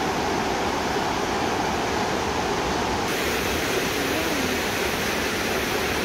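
Shallow mountain stream rushing steadily over rocks and through small rapids.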